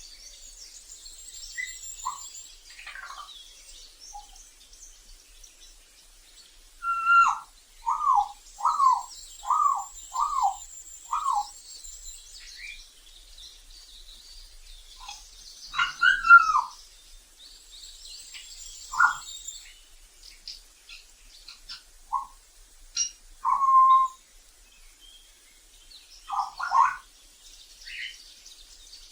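African grey parrot whistling: a quick run of about six short, falling whistles, then scattered single whistled calls, over faint high chirping.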